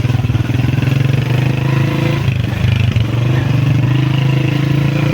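Honda CG125 motorcycle's single-cylinder four-stroke engine running at fairly steady revs.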